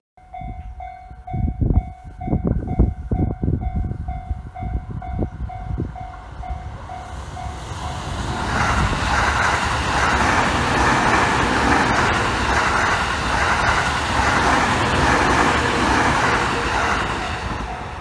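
Japanese level-crossing warning bell ringing its rapid repeated dings, with low thumps in the first few seconds. Then an electric commuter train runs over the crossing, its wheels on the rails a loud steady rush for about nine seconds that drowns the bell, easing off near the end.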